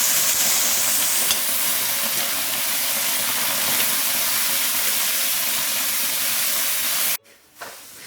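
Onions, peppers and pineapple sizzling in a very hot, lightly oiled wok: a steady hiss that cuts off abruptly about seven seconds in.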